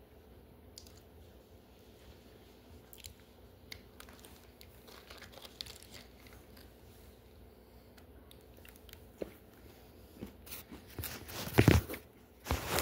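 Someone crunching and chewing crisp vanilla Dunkaroos cookies, in scattered small crunches. Near the end come a few much louder rustling knocks as the phone is handled.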